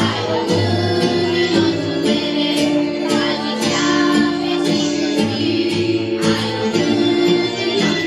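Children's choir singing a song in unison over an instrumental backing track with a steady beat.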